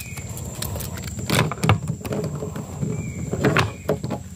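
Several knocks, clicks and rattles as a fishing rod and a just-landed giant freshwater prawn are handled in a small wooden boat, with louder thuds about one and a half and three and a half seconds in. A steady high insect whine runs underneath.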